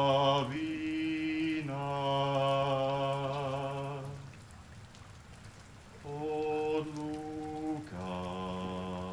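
A man singing a slow chant in long, steadily held notes, with a pause of about two seconds midway.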